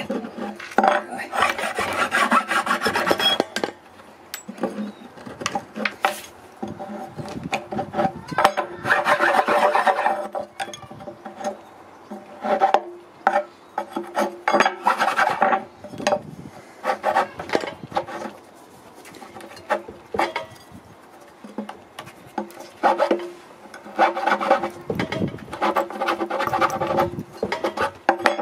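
Hand scraping and sanding on the oak head of a half wine barrel, smoothing around its drilled drain holes: rough rasping strokes that come in bouts with short pauses between.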